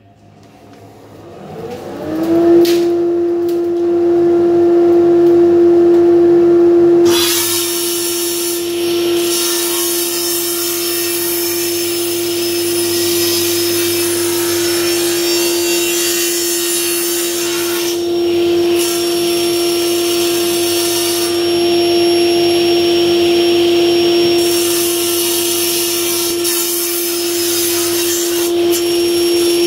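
Table saw starting up, its whine rising over about two seconds to a steady pitch, then the blade cutting through a thick hardwood board on a crosscut sled, slicing it into strips. The cutting noise comes in about seven seconds in and runs on, easing briefly partway through.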